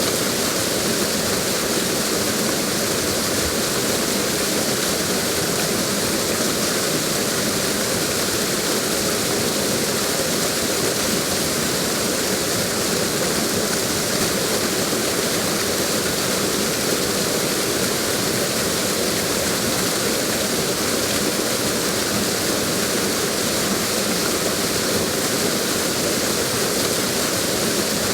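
Waterfall: a steady, unbroken rush of falling water with a lot of hiss in the highs.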